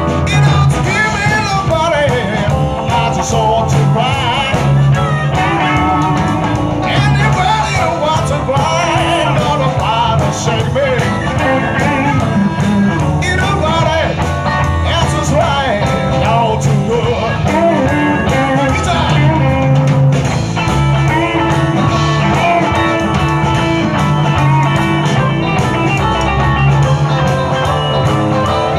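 Live blues band playing: electric guitars over bass and drum kit, with a steady bass line throughout.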